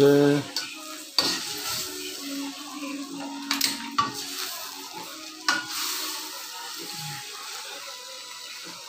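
Metal spoon scraping and clinking against a stainless steel pan while mixing cooked rice and chicken curry from the bottom up, with a few sharp clinks and a soft sizzle from the hot pan.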